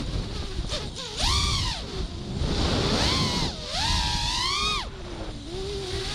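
5-inch FPV quadcopter's brushless motors and propellers whining, the pitch swooping up and down several times as the throttle is opened and closed, over a low wind-like rumble.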